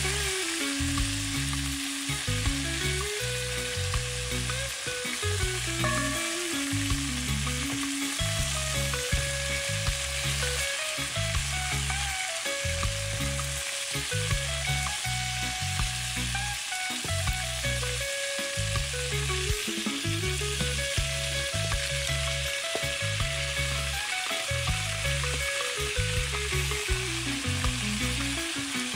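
Chicken pieces browning in hot oil in a steel pot, sizzling steadily as they are turned with tongs. Background music with a repeating bass line and a slow stepped melody plays throughout.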